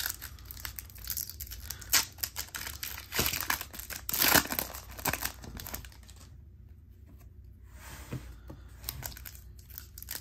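Hands flipping through and handling a stack of 1993 SkyBox trading cards: irregular rustling, sliding and snapping of card stock, loudest about two and four seconds in, with a quieter stretch past the middle.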